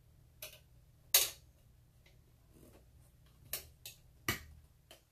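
Sharp metal clicks and clinks from a Dietz hurricane lantern's wire guard and glass globe being moved and seated, about six in all, the loudest about a second in with a brief ring.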